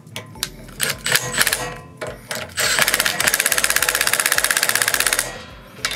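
Cordless impact driver on its lowest setting tightening the 6 mm bolts of a front brake caliper: a few short blips, then a rapid even hammering for about two and a half seconds that stops suddenly.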